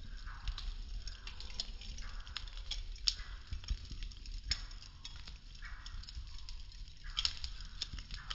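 Burning popsicle-stick wood crackling, with irregular sharp pops and snaps over a low steady rumble.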